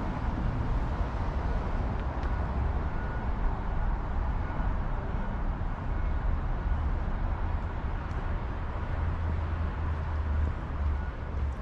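Steady outdoor background noise with a constant low rumble and no distinct events.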